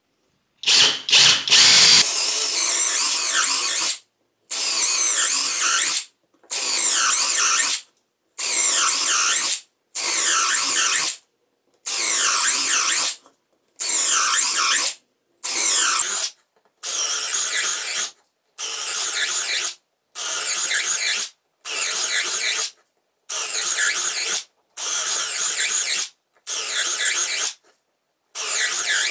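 Parkside Performance 12V brushless cordless drill driver boring one hole after another, on a freshly charged 4 Ah battery: about sixteen drilling runs of a second or two each, with short breaks between.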